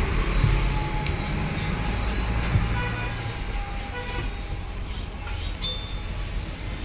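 Steady low rumble of road traffic, with a few faint short tones and light clicks over it.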